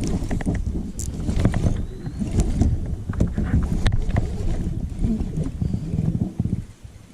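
Knocks and bumps from moving about in a kayak, irregular and scattered, over a steady low rumble of wind on the microphone.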